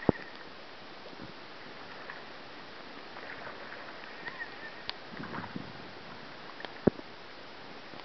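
Steady hiss of river water and wind, broken by two sharp knocks, one right at the start and another about seven seconds in, with a few faint ticks between them.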